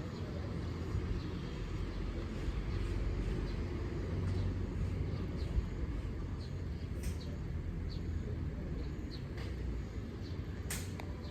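Steady low rumble of vehicle traffic, with a few faint clicks scattered through it and one sharp click near the end.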